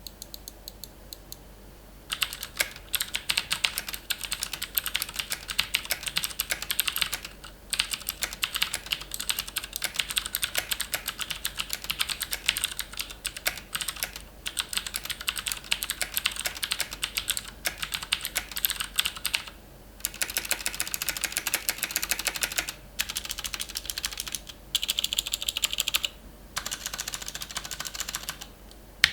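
Fast typing on a Logitech G610 mechanical keyboard with Cherry MX Blue switches: dense, rapid clicking in runs with short pauses, starting about two seconds in.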